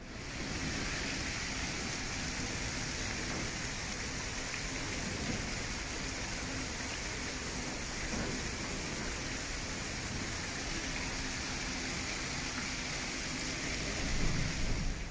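Rushing, churning water pouring into a canal lock chamber through the openings under the gate as the lock fills: a steady, dense hiss of falling, foaming water, a little louder near the end.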